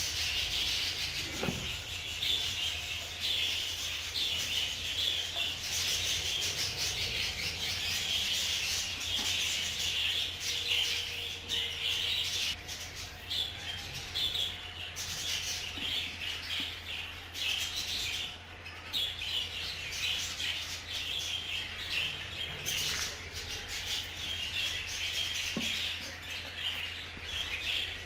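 A flock of budgerigars chattering and chirping without a break, with a steady low hum underneath.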